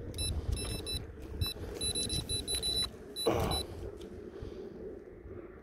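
Spinning reel's drag giving line to a hooked fish in rapid short bursts of a high, ringing buzz that stop about three seconds in. A brief louder sound follows just after, over wind rumble on the microphone.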